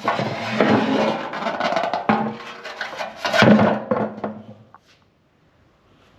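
A short burst of drum-led music with snare hits, starting abruptly and fading out just under five seconds in.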